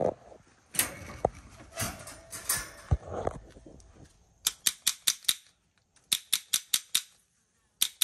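Black-throated monitor lizard crunching a soft-boiled egg with the shell on: irregular cracks at first, then from about halfway quick runs of sharp crunching bites, about five a second, in three bursts.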